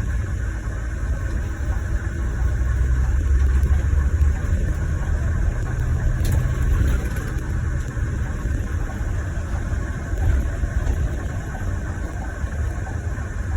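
Inside the cabin of a Scania Irizar i6 coach: steady low engine and road rumble, swelling a little a few seconds in, with a brief click about halfway through.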